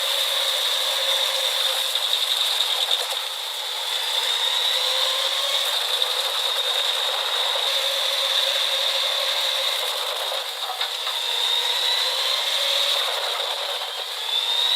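Pezzolato drum wood chipper running steadily, a continuous mechanical rattle with a high, steady whine. The sound is thin, with no low end.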